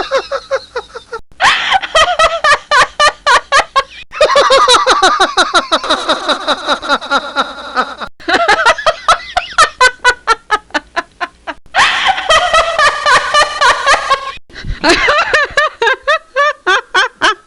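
A string of separate recorded laughs, rhythmic ha-ha-ha bursts of about four or five a second, each cut off sharply into the next every three or four seconds.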